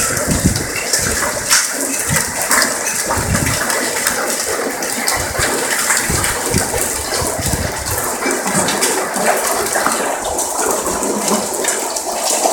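Golf-ball-sized hail and rain pelting a concrete walkway and lawn: a steady rush of falling water with many sharp clicks of hailstones striking.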